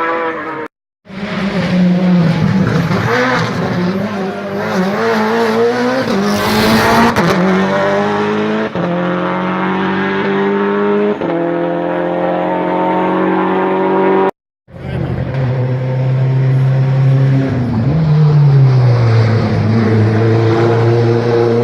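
Hillclimb race car engines at full throttle, pulling up through the gears with a drop in pitch at each upshift, with a burst of tyre squeal about six seconds in. The sound breaks off twice for a moment, and near the end an engine's pitch falls as it comes off the throttle.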